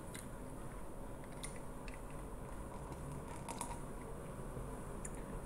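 Quiet room tone with a steady faint hiss and hum, broken by a few short, faint clicks.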